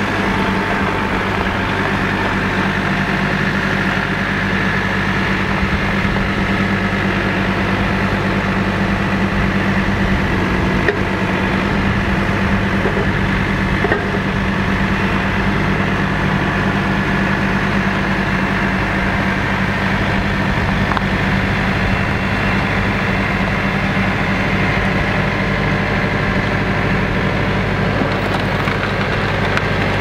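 RK55 compact tractor's diesel engine running steadily at low revs as the tractor moves up to the pallet stack.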